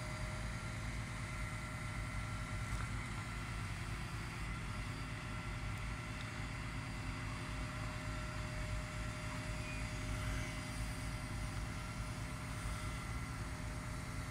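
Boom truck's engine running steadily, driving the hydraulics of its knuckle-boom crane as it moves a load: a low rumble with a few steady whining tones over it.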